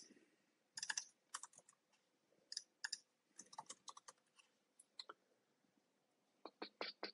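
Faint typing on a computer keyboard: short runs of keystrokes with brief pauses between them.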